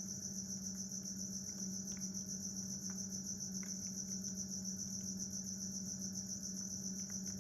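Crickets chirping in a steady, rapid, high-pitched trill, with a steady low hum beneath.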